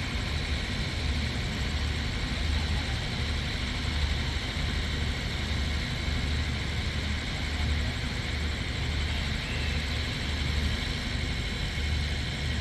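Diesel train engine running with a steady low throb that pulses about once a second, under a steady hiss.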